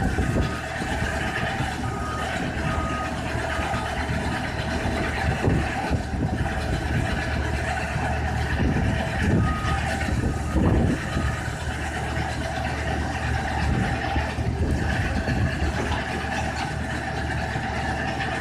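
Erin TD125T (Fintec 540) mobile screener's Deutz diesel engine running steadily alongside a working wheel loader, whose reversing alarm beeps on and off. Occasional knocks and rumbles come as the loader works the feed hopper, mostly around the middle.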